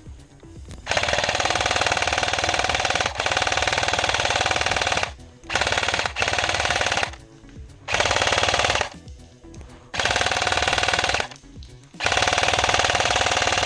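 Electric airsoft machine gun (Matrix MG42 AEG) firing on full auto: a fast, even mechanical rattle of the gearbox cycling, in about five long bursts, the first about four seconds long, with short pauses between.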